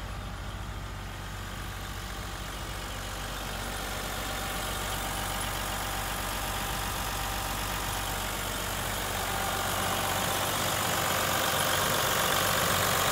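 Hino Liesse II's 1HD-FTE 4.2-litre straight-six turbo diesel idling steadily, growing louder in the second half as the open engine cover beside the driver's seat comes close.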